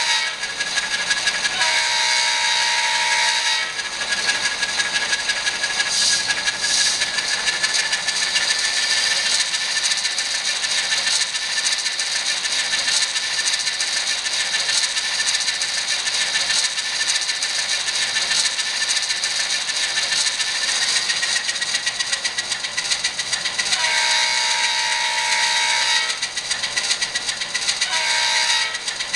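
Atlas N-scale ALCO S-2 model locomotive's factory DCC sound decoder playing a diesel switcher's engine sound through its small speaker, a steady, tinny hiss with a thin high tone. A multi-note horn sounds for about two seconds near the start, then twice near the end, the last blast short.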